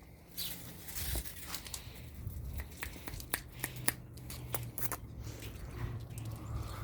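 Dogs tearing at and chewing grass and plants: an irregular run of sharp crunches and rustles.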